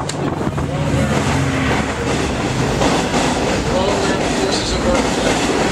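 Loud, steady rumbling noise that swells in the first second and then holds, drowning out a man's voice speaking through a microphone.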